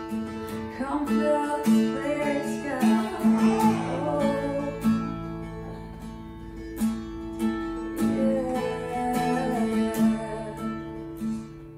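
Worship song ending on acoustic guitar strumming over sustained chords, growing quieter toward the end as the song closes.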